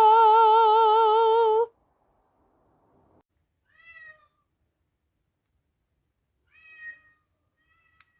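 A held sung note with vibrato, cut off sharply about a second and a half in, then a domestic cat meowing: two short meows a few seconds apart and a brief third one near the end.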